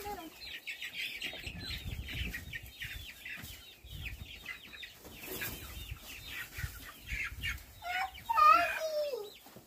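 Chickens clucking and calling in a rapid run of short, falling, high calls, with one louder drawn-out cry about eight seconds in.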